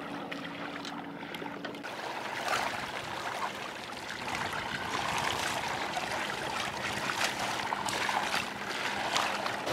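Water swishing and splashing along a moving sailing yacht's hull and around the inflatable dinghy it tows astern, growing a little louder after a couple of seconds.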